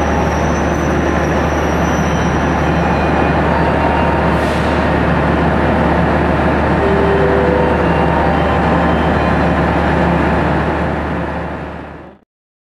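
Steady diesel drone and rumble of an Indonesian passenger train at the station, with a short hiss about four and a half seconds in. The sound fades out near the end.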